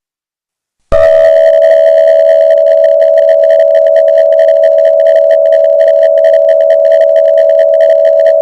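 Emergency Alert System attention signal: a loud, steady alarm tone with a slight crackle, starting about a second in after a moment of silence.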